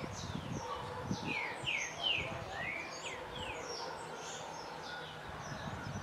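Blue-and-white swallow twittering: a quick run of short, mostly falling chirps, densest in the first half, with thinner high notes scattered around them.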